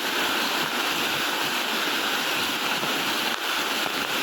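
Waterfall water rushing and splashing, a steady, even roar of falling water.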